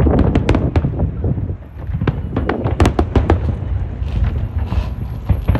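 Fireworks going off in a dense, irregular barrage of loud bangs and crackles over a continuous low rumble, with a brief dip about one and a half seconds in.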